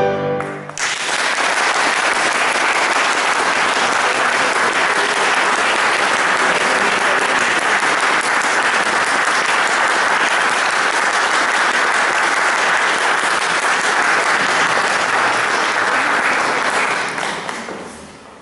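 The final sung note and piano chord end within the first second, then an audience applauds steadily, the clapping fading out near the end.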